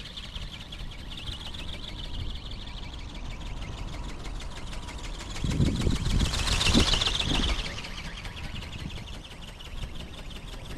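RC ornithopter's geared brushless motor and flapping film wings making a high, rapidly pulsing buzz in flight. The buzz grows loudest about six to seven seconds in as the ornithopter passes close. Low wind buffeting on the microphone runs under it.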